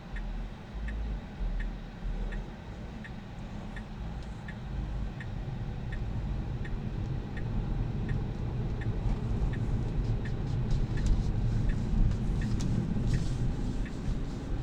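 Tesla Model 3 turn-signal indicator ticking steadily, a little faster than once a second, over low tyre and road rumble inside the moving car's cabin; the ticks stop shortly before the end.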